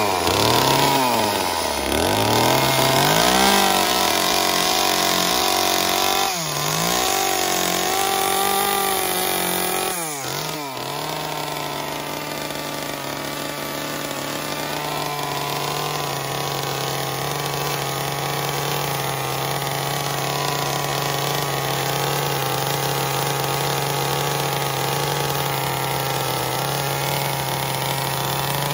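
Gas chainsaw revving up and down as it carves into a wooden log for about ten seconds, then idling steadily at an even pitch.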